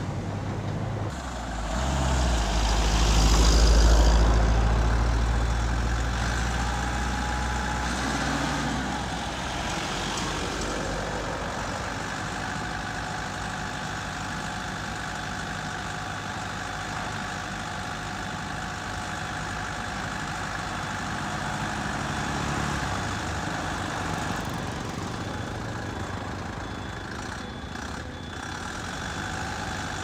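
Diesel truck engines at low speed: a heavy low rumble swells and fades in the first several seconds. Then a JAC bitumen distributor truck runs steadily as it creeps along, with a faint, steady, higher-pitched hum over its engine.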